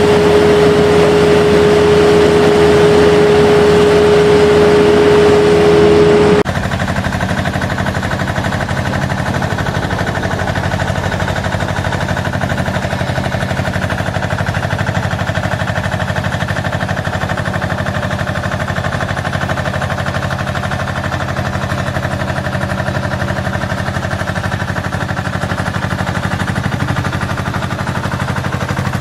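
Heavy road construction machinery running with diesel engines. For the first six seconds a steady high whine sits over the engine noise. Then the sound changes abruptly to a lower, steady engine drone with a fast rattle under it.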